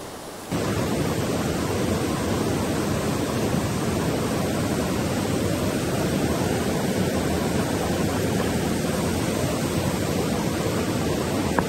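Steady, loud rush of flowing stream water close to the microphone, switching on abruptly about half a second in and cutting off abruptly at the end.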